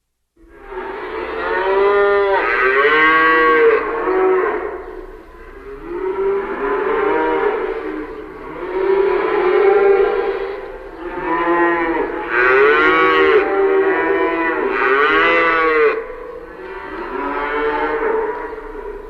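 Cows mooing: a run of long, loud moos one after another, each rising and then falling in pitch, some overlapping. They begin after a moment of silence.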